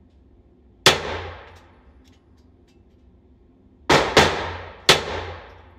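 Four .22 gunshots echoing in a shooting range, each leaving a long ringing tail. The first comes about a second in, then three in quick succession about four seconds in.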